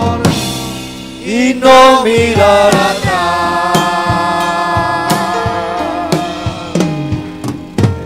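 Live church worship band playing the closing bars of a chorus: keyboard and electric bass holding chords, a singing voice in the first seconds, and scattered drum hits that gather into a short fill near the end as the music dies away.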